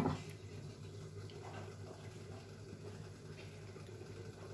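A glass pan lid is set down on a metal kadai with a short clink right at the start. Then the covered curry simmers faintly under a low steady hum.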